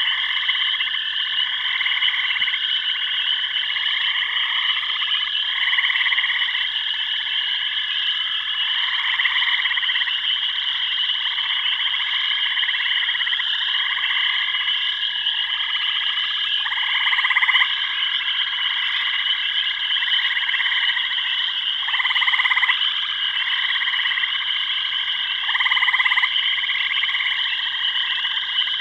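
Chorus of frogs calling in repeated short croaks, one every second or two, over a continuous high-pitched trilling chorus; a few calls stand out louder in the second half.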